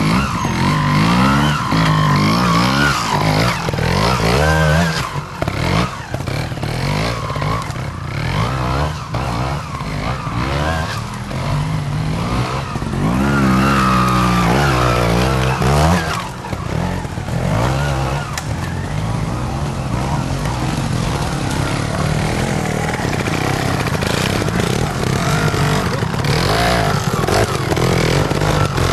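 Trials motorcycle engines revving up and down, the throttle opened and closed again and again as the bikes claw up a steep slope over branches, stumps and stones.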